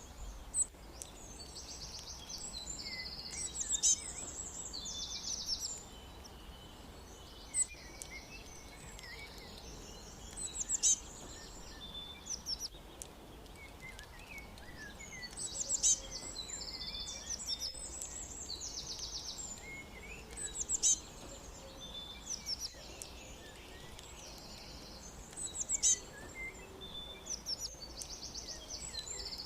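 Songbirds chirping and trilling: clusters of high, rapid trills and sharp chirps come every few seconds over a faint low hum.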